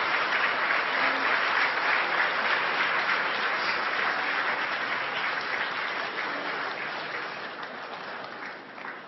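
A crowd applauding, loud at first and fading away over several seconds, in reaction to the confirmed re-entry burn of the Falcon 9 first stage.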